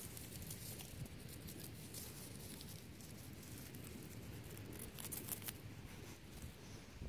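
Faint crackling and rustling of dry straw and twigs as a reed stick is poked through them, with a denser cluster of crackles about five seconds in.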